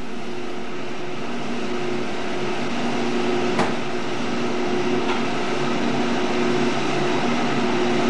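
Steady hum of electric machinery, with a low tone that fades in and out. Two sharp clicks come through it, about three and a half and five seconds in.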